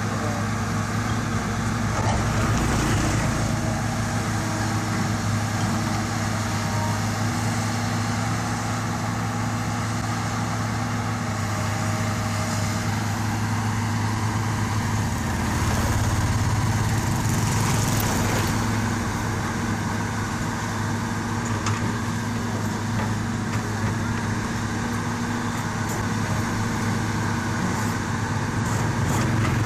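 Diesel engine of a tracked hydraulic excavator running steadily as it digs earth, getting louder about two seconds in and again around the middle.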